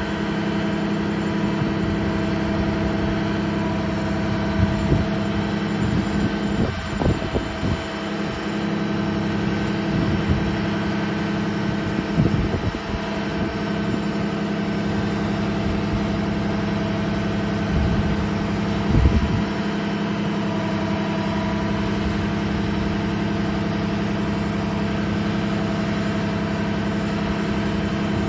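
Freightliner M2 bucket truck's diesel engine running steadily at an even, unchanging pitch while it powers the hydraulics of the raised Altec aerial boom.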